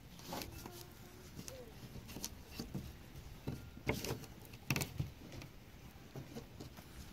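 Thin plastic-bag sheeting crinkling and rustling as hands fold it over a stick, with a few sharper crackles about four and five seconds in.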